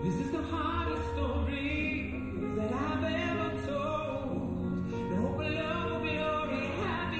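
Music: a singing voice with a wavering melody over held instrumental notes and a low pulse.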